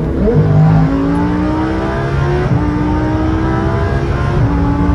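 Heffner twin-turbo Lamborghini Huracán V10 heard from inside the cabin, accelerating hard. The revs jump near the start, then the engine note climbs and drops at an upshift about two and a half seconds in and again near the end.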